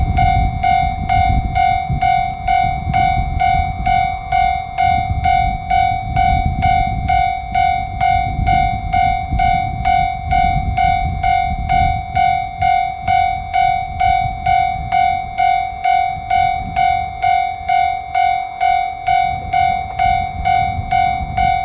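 Electronic warning bell of a Japanese railway level crossing ringing steadily, about three rings every two seconds, over a low rumble that swells and fades.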